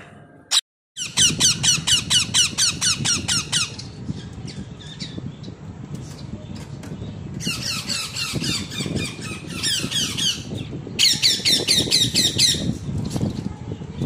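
Parakeet chick calling in rapid trains of short, high, downward-sliding chirps, about five a second, in three bouts, the repeated calling of a chick wanting food.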